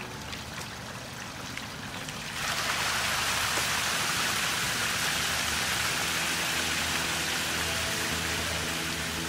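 Soft background music, then about two and a half seconds in a steady hiss of water sets in and holds, a rain-like spray over the music.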